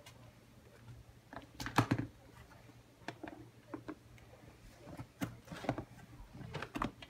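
Clear plastic Sterilite storage-bin lid being set onto the tub and pressed down, making a series of light plastic clicks and knocks, loudest about two seconds in and again near the end. A steady low hum runs underneath.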